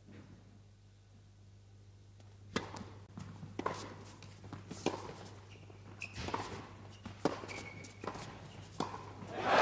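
Tennis doubles rally: sharp racket strikes on the ball and ball bounces on the court, one every half second or so, starting after a couple of quiet seconds. Crowd applause swells in right at the end as the point finishes.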